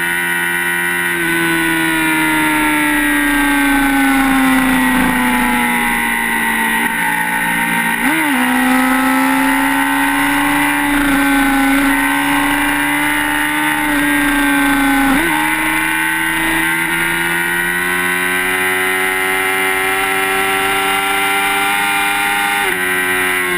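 Sport motorcycle engine running hard at highway speed under wind noise. Its pitch sags slowly, shifts abruptly twice, about 8 and 15 seconds in, then climbs steadily before dropping near the end.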